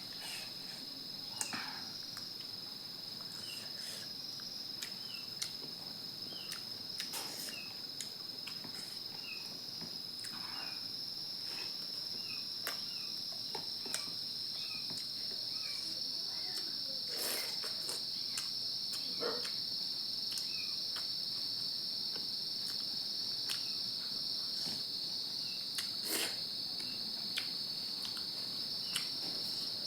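Crickets trilling, a steady high-pitched drone throughout, with scattered faint clicks and taps.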